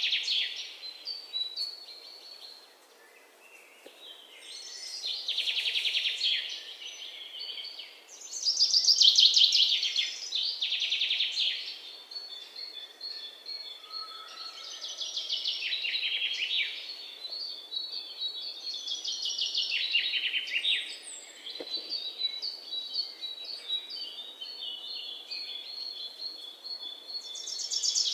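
Songbirds singing: a series of rapid trilled phrases, each a second or two long and coming every few seconds, with a steady high pulsing trill running beneath them through the second half.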